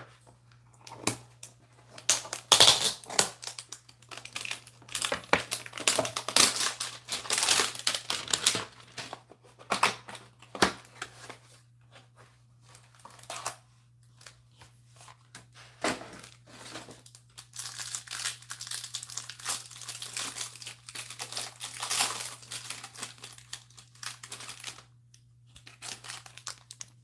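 Scissors cutting into a cardboard trading-card hanger box, then crinkling and tearing as its foil-wrapped card pack is pulled out and opened. It comes in irregular bursts of crinkly rustling with short quiet gaps between.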